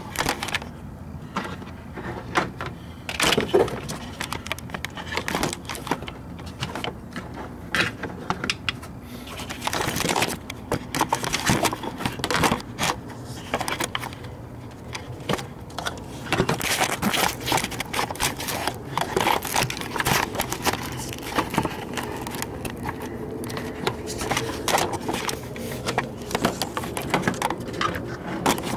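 Metal hand tools clicking, knocking and scraping at irregular intervals as a socket extension and magnetic spark plug tool are worked in a spark plug well, with handling noise close to the microphone.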